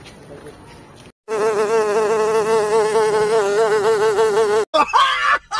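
Loud fly-like buzzing sound effect: one steady, slightly wavering buzz. It starts abruptly about a second in, after a moment of dead silence, and cuts off near the end.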